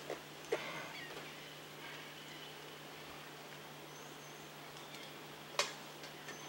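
Two sharp clicks, one about half a second in and one near the end, over a quiet outdoor background with a faint high chirp shortly before the second click.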